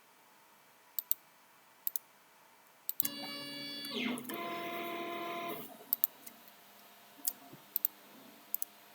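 Computer mouse clicks, and about three seconds in a steady whine of several tones lasting some two and a half seconds, with a falling glide partway through. The whine is from the Ultimaker 2 3D printer's stepper motors moving its axes as the print begins.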